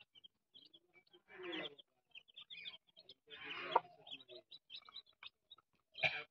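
A brood of chicks peeping, many short high peeps, as they feed, with three louder short rough sounds about a second and a half, three and a half, and six seconds in.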